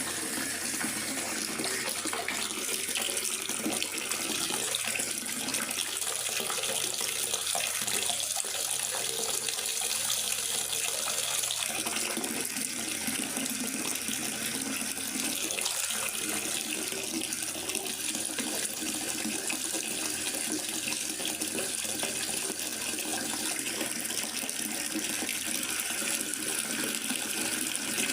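Steady rain falling in a forest: an even, unbroken hiss of water.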